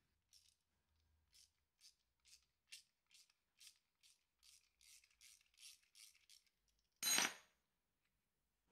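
Faint ratcheting of a socket wrench undoing the brake pad holding pin on a scooter's front brake caliper: short rasping strokes, about two a second, stopping after about six seconds. A single louder clatter follows about seven seconds in.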